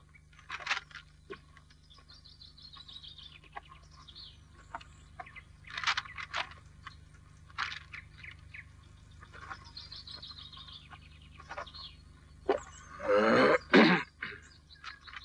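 Birds singing: descending chirping trills twice, with scattered short chirps and clicks between. Near the end, a louder pitched call lasting about a second.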